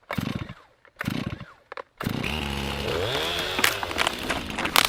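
Stihl MS 261 chainsaw: two short bursts, then from about two seconds in it runs continuously, revving up and down, with a few sharp cracks near the end.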